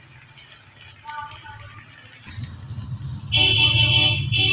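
A loud, steady, pitched honk lasting about a second, starting about three seconds in and sounding again briefly near the end, over a low hum that comes in about two seconds in.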